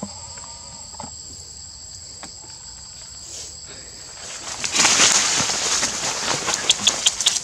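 Steady high-pitched insect drone, then from about five seconds in, loud rustling and crackling of dry leaves and branches being moved through, with a quick run of crisp crunches near the end.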